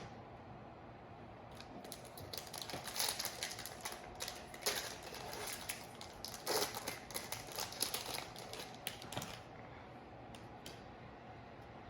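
Crackling and crinkling of a foil trading-card pack wrapper being torn open and handled, a dense run of quick clicks from about a second and a half in until shortly before the end.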